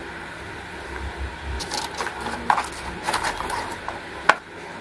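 Workbench handling noises: a cardboard box being handled and opened in a few short scrapes and rustles, then one sharp tap about four seconds in, the loudest sound.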